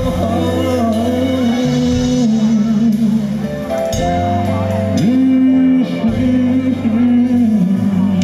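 Live pop-rock band music: a male singer's voice over electric guitar, bass guitar and keyboard.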